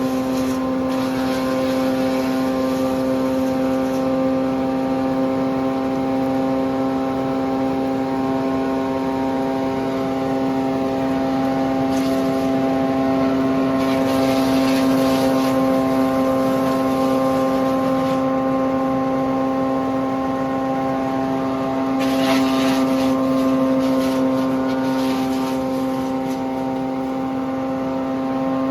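A wood chipper's 102 hp four-cylinder diesel engine running steadily at speed with a constant hum. Several bursts of harsher noise, a few seconds long, come in over it.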